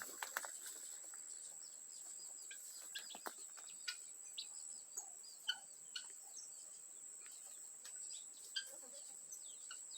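Small songbirds chirping and twittering in many short, scattered notes, with chickens clucking faintly in the background.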